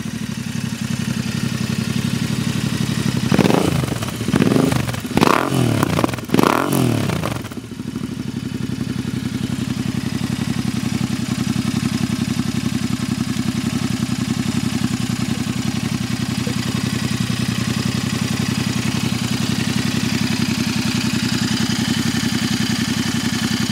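Royal Enfield Interceptor 650's parallel-twin engine through an S&S muffler: idling, revved in several quick throttle blips a few seconds in, then settling into a steady idle.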